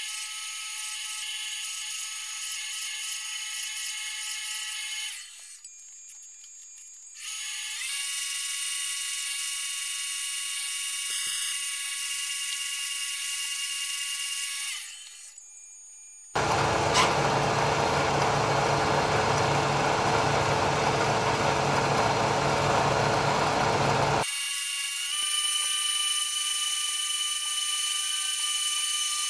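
CNC-converted Bridgeport Series 1 milling machine running its program, drilling and boring holes in an MDF test plate: a steady high whine made of several held tones, which drops away briefly twice. For several seconds past the middle, a louder rough rushing noise with a low rumble takes over before the whine returns.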